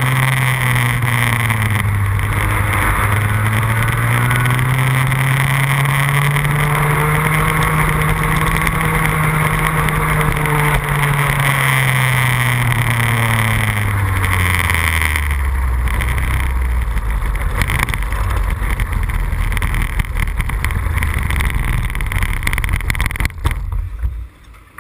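Onboard sound of a go-kart's two-stroke engine at racing revs, its pitch rising and falling as it accelerates and brakes. About two-thirds of the way in it drops to a low, steady idle as the kart slows off the track, and shortly before the end the engine cuts off.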